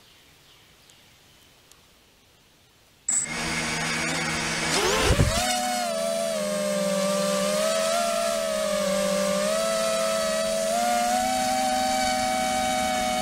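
Quadcopter drone's electric motors and propellers: after about three seconds of near quiet the motors suddenly spin up, rise sharply in pitch as it lifts off about five seconds in, then settle into a steady whine that shifts slightly in pitch as it flies.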